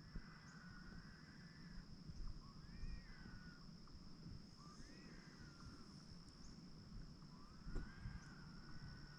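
Faint calls from an unseen animal, heard as a strange sound: four wavering whistle-like cries, each about a second long and rising then falling, a couple of seconds apart. Under them runs a steady high-pitched insect drone.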